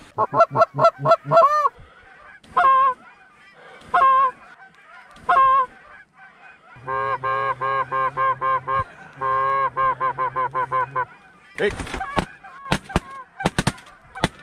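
Canada geese honking: first a quick run of calls, then three single honks a second or so apart, then two long rapid runs of honks. A few sharp clicks near the end.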